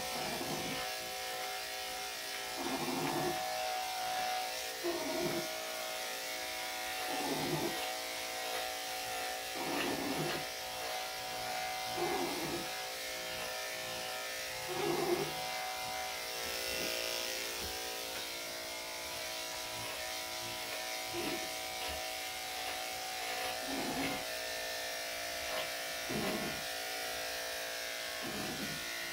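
Electric dog clippers buzzing steadily while shaving a dog's coat, the sound swelling briefly every two to three seconds as the blade is pushed through the hair.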